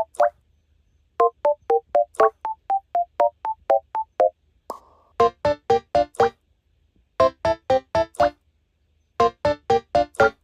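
Background music: a light keyboard tune of short, plucked-sounding notes in quick runs of about four or five notes a second, separated by short pauses.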